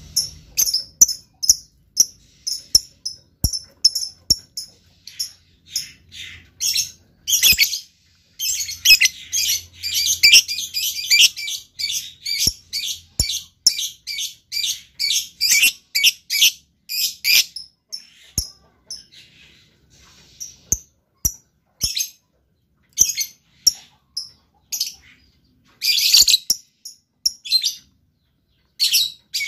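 Lovebird calling in a long series of short, high, shrill chirps, coming in a fast unbroken run through the middle and in scattered single chirps near the start and end.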